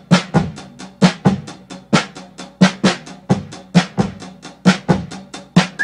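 Intro music: a solo drum beat of kick and snare hits, a few strokes a second in a repeating pattern.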